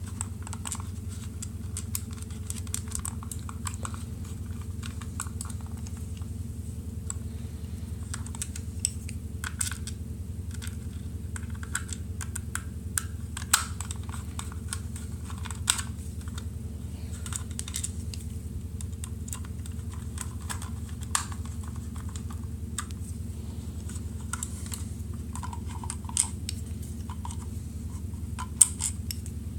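Irregular light clicks and taps of small plastic trackball parts being handled, fitted into their slots and snapped together, a few sharper clicks standing out, over a steady low hum.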